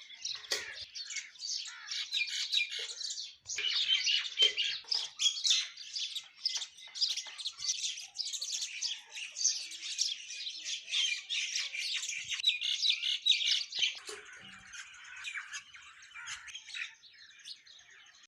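A group of mynas and sparrows chirping and squawking in a dense, overlapping chatter. The chatter thins out and grows quieter for the last few seconds.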